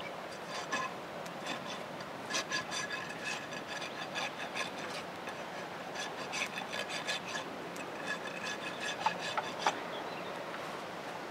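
Hoof rasp filing a young Haflinger foal's hoof during its first trim, in runs of quick scraping strokes with short pauses between them and a few sharper clicks near the end.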